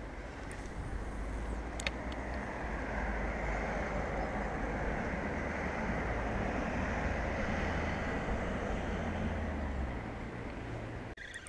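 Road vehicle passing: its rumbling engine and tyre noise swell up over the first few seconds, hold, and fade near the end.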